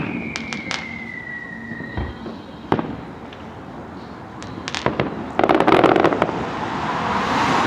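Fireworks display: a falling whistle that fades out in the first two seconds, scattered sharp bangs, then a dense burst of crackling about five and a half seconds in, followed by a rising rush of noise near the end.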